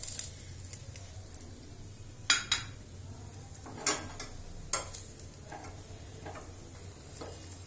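Paratha frying on a steel tawa over a high flame with a faint sizzle, broken by a handful of sharp metal clinks of a spoon and a steel spatula against the steel pan, the loudest a little over two seconds in and again around four and five seconds in.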